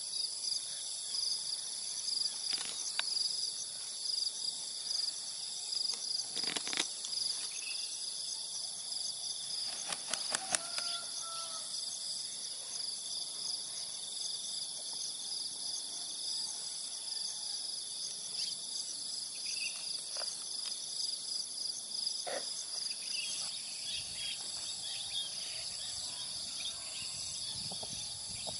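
Steady, high-pitched chorus of insects, with a few brief clicks about six and ten seconds in.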